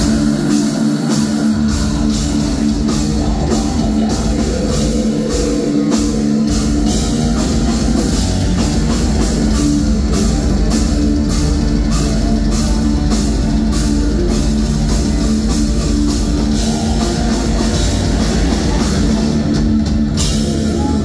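Live heavy metal band playing: distorted electric guitar over a drum kit with fast, evenly spaced hits.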